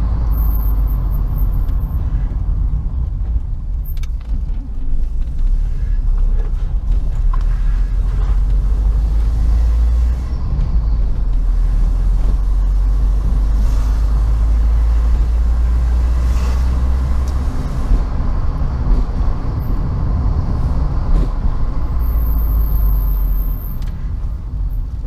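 Car driving slowly through streets: a steady low rumble of engine and tyres.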